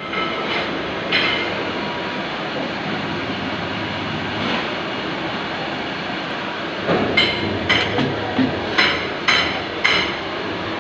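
CNC lathe running steadily while turning a component. It gives one sharp knock about a second in, then a run of sharp knocks about twice a second in the second half.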